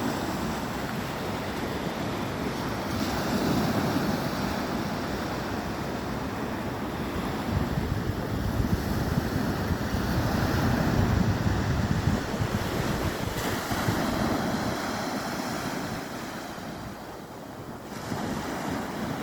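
Sea waves breaking and washing in, surging and easing, with wind buffeting the microphone. The surf drops briefly into a quieter lull near the end before building again.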